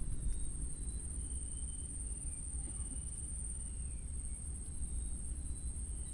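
A high, steady, fast-pulsing insect trill over a low rumble of wind on the microphone, with a few faint short high chirps.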